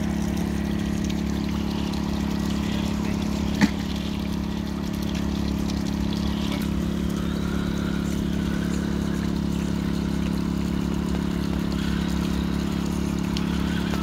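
Steady hum of a portable generator running, with water running over a small waterfall underneath. A single sharp click about three and a half seconds in is the loudest moment.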